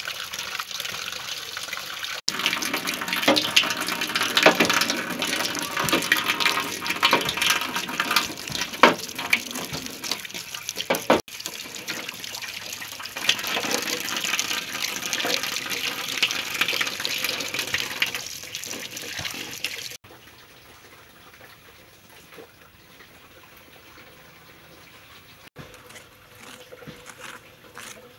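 Tap water running and splashing into an aluminium pot as eggs are washed, with many light knocks and clinks. It drops much quieter near the end.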